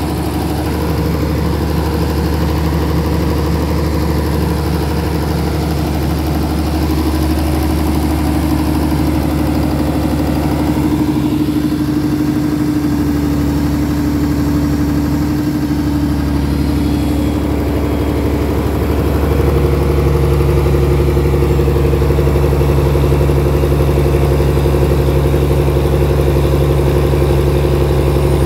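Generator engine running steadily under electrical load from a water-tank resistance load bank. About two-thirds of the way in it gets louder and its note changes as the load rises.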